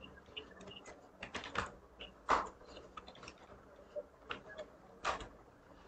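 Typing on a computer keyboard: irregular keystrokes, single clicks and short runs with pauses between them.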